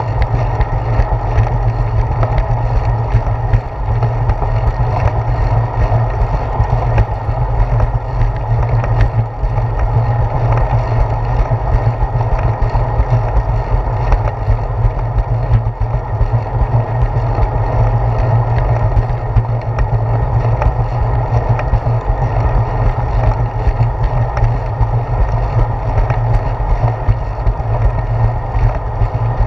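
Steady, loud low rumble of wind buffeting and road vibration picked up by a handlebar-mounted GoPro Hero 4 as the bicycle rolls along a concrete bike path.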